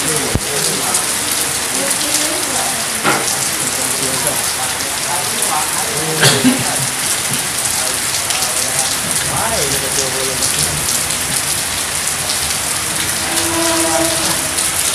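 Steady rain falling, a dense even hiss, with faint voices now and then in the background.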